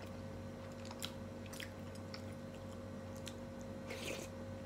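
Someone chewing a mouthful of bakso meatball and glass noodles, with scattered small wet mouth clicks and a short louder mouth sound about four seconds in as another spoonful goes in. A steady low hum runs underneath.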